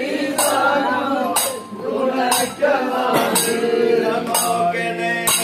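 Group of men singing a Parichamuttu Kali song, with sharp metallic clinks of sword on shield about once a second keeping the beat.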